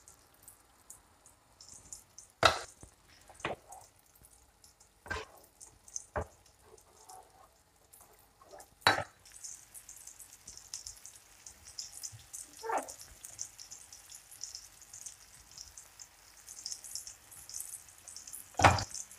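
A few sharp knocks and clinks of kitchen utensils on the pans, then from about nine seconds in a light steady sizzle of oil as flour-dredged meatballs fry in a shallow pan.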